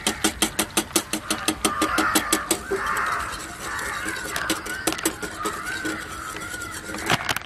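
Wire whisk beating a thin egg batter in a glass bowl, its wires clicking fast and regularly against the glass, about seven times a second. The clicking softens into a swishing for a few seconds in the middle while flour is poured in and stirred.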